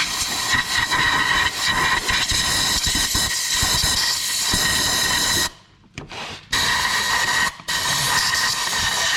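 Compressed-air blow gun hissing in long blasts, forcing water and debris out of a flooded Can-Am engine. The air cuts off twice, about five and a half and seven and a half seconds in, then starts again.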